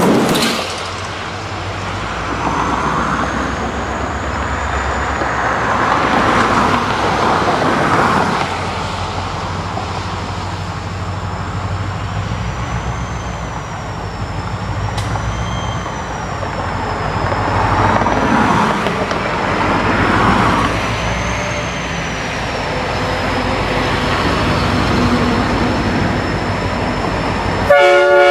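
Steady low engine rumble with vehicle noise swelling and fading several times. Just before the end a loud air-horn blast starts.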